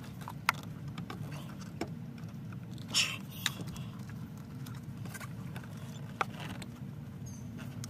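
Scattered small clicks and knocks as a rubber air intake hose and its clamps are worked by hand onto their fitting, over a steady low hum.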